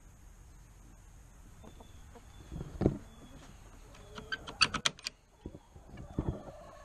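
Metal barrel-bolt latch on a wooden chicken-coop door being worked and slid open: a quick run of sharp metallic clicks and rattles about four to five seconds in, then softer knocks as the door swings. A single thump comes just under three seconds in.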